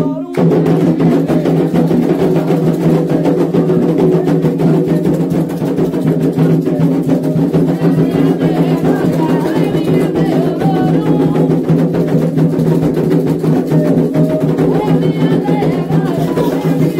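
Candomblé atabaque drums playing a fast, steady rhythm in a toque for Iansã, with a group of voices singing over the drumming from about halfway on.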